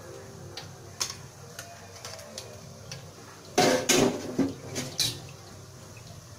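Stainless-steel ladle and wire spider strainer knocking and scraping against each other and the metal wok while lifting and draining fried grated galangal over the hot oil: a single click about a second in, then a burst of clattering about three and a half seconds in, followed by a few lighter knocks.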